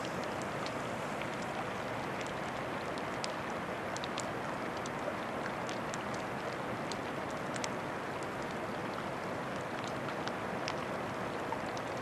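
Steady rushing hiss of water with many small, sharp ticks and pops scattered irregularly through it, the crackle of floating glacier ice in the water.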